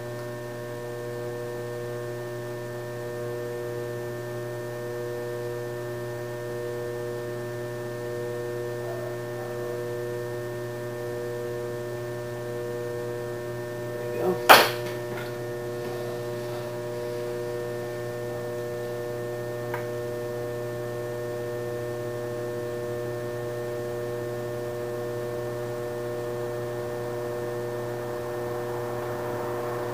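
Electric potter's wheel motor running at a steady speed, giving a constant hum with a whine above it. A single sharp knock comes about halfway through.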